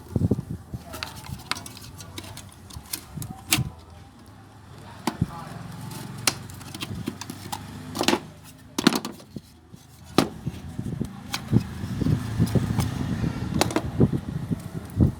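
Evaporative cooler's submersible water pump being handled and taken apart: scattered clicks and knocks of its parts, with stretches of low rumbling noise.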